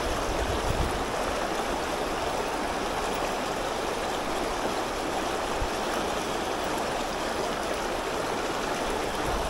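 Steady rush of river rapids, white water pouring over rocks.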